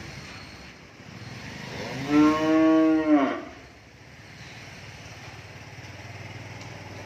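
A cow moos once, a single call of about a second and a half that drops in pitch at the end. A steady low hum runs beneath it.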